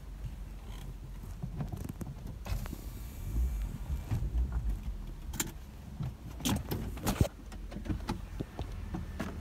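A car's engine idling in a low, steady hum, under a string of clicks, knocks and rustles from a phone being handled, with one sharp knock loudest, about seven seconds in.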